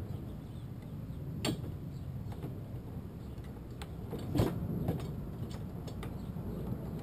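Scattered light clicks and knocks of a PVC outrigger arm and its fittings being handled and slid into place on a plastic kayak. A sharper knock comes about a second and a half in and the loudest one about four and a half seconds in, over a steady low background rumble.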